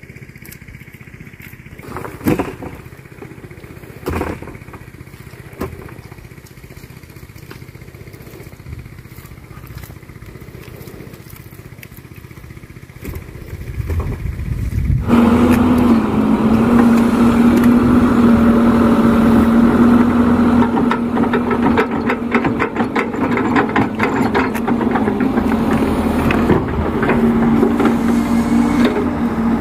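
Crawler excavator's diesel engine running low and quiet, with a few sharp knocks in the first few seconds, then about halfway through it revs up and runs loud and steady with a constant droning hum.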